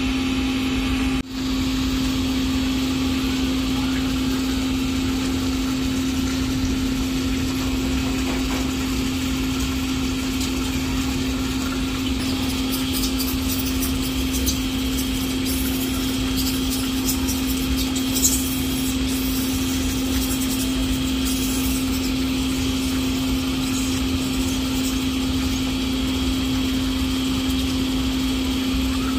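Steady machine hum: one constant low tone over an even drone, unchanging throughout, like a motor running. Faint clicks come through around the middle.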